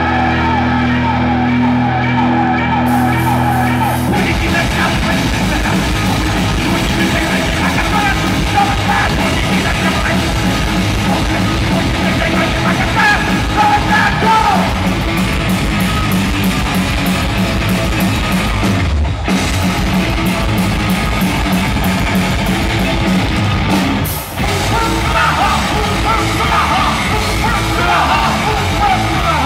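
A thrash metal band playing live through a large PA: distorted electric guitars, bass and drums with yelled vocals. A held chord rings for about the first four seconds, then a fast beat kicks in, with two very short stops near the end.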